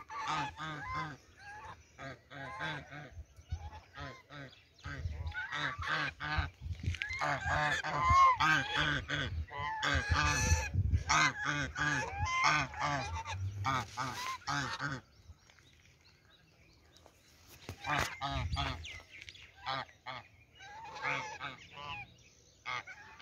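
Waterfowl calling in a rapid series of short calls, stopping for a few seconds partway through and then starting again.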